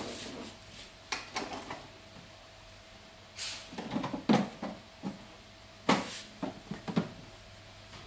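Several sharp snapping cracks, a second or two apart, as a barber pinches and pulls the skin of the upper back in a skin-cracking massage. A brief rustle of hoodie fabric comes between them.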